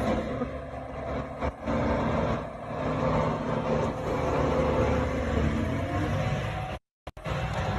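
Heavy machinery engine running steadily at a work site. The sound cuts out briefly about seven seconds in.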